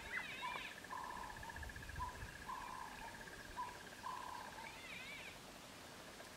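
Faint wild birdsong: a repeated call of short and longer notes every half second or so, over a steady high pulsing trill that stops near the end, with a quick chirping call at the start and again near the end. Light wind rumble at first.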